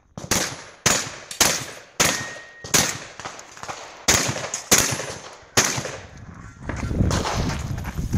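Eight gunshots from a shouldered long gun, fired about two-thirds of a second apart with a short pause after the fifth. Near the end a low rumbling noise takes over.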